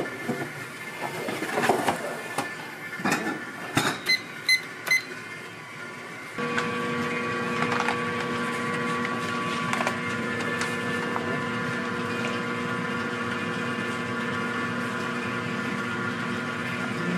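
Metal kitchen clatter and knocks as a sheet pan goes into a deck oven, with three short electronic beeps about four to five seconds in. From about six seconds a steady machine hum with a constant pitch runs on.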